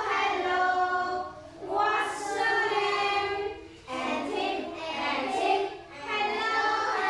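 A group of children singing together in unison, in phrases of about two seconds with short breaks between them.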